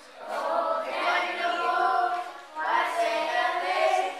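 A group of voices singing together in sustained notes, children's voices among them, with no bass instruments.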